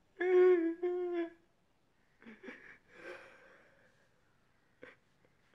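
A young man's mock crying: two drawn-out whimpering wails, then softer breathy sobbing sounds, and a brief click near the end.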